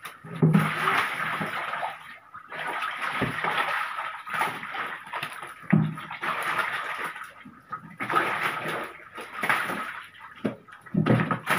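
Water splashing and sloshing in repeated bursts of a second or two each, as hands grab at snakehead fish thrashing in a shallow tarp-lined tank.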